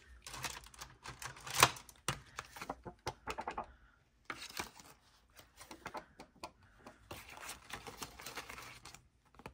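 Paper and dollar bills rustling and sliding as a savings tracker sheet and cash are handled, with a sharp snap about one and a half seconds in as the metal rings of a six-ring budget binder are opened.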